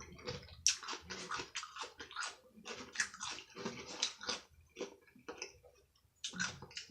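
A person chewing and biting food close to the microphone: irregular wet mouth noises several times a second, pausing briefly near the end before a last few chews.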